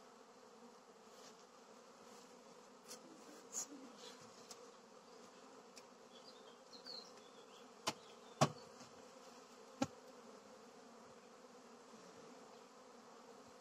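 Carniolan honeybees buzzing steadily around an open hive during a spring inspection, with a few sharp knocks from the hive or its wooden frames in the middle, the loudest two close together around eight seconds in.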